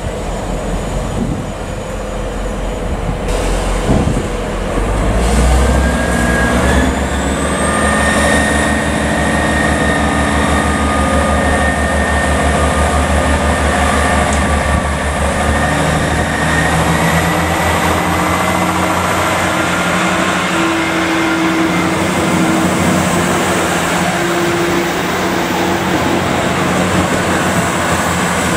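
Two-car Class 158 diesel multiple unit pulling away: its underfloor diesel engines open up about five seconds in with a deep, steady throb, and a whine climbs in pitch as the train gathers speed. A single sharp knock comes just before the engines open up.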